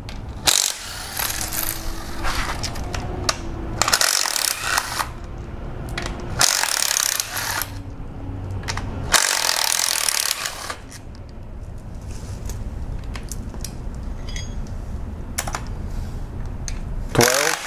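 Cordless ratchet with a 10 mm socket on an extension spinning out engine timing cover bolts in repeated runs of a second or two, its motor whining under the ratchet noise, with small metal clinks of loose bolts between runs.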